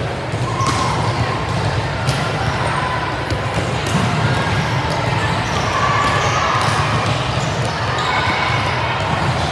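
Indoor youth match in a gym: steady crowd chatter with scattered sharp knocks of the ball being hit or bounced.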